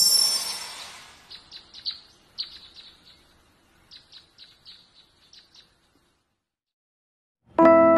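A swoosh with a high shimmering chime fades over the first second, followed by a run of short bird chirps that stop about six seconds in. After a brief near-silence, a piano chord comes in near the end.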